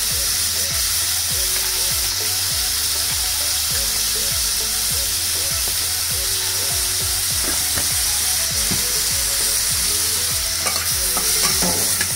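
Tomatoes, garlic and whole dried red chillies sizzling steadily in hot oil in a metal kadhai. Near the end a metal spatula scrapes and knocks against the pan as the mix is stirred.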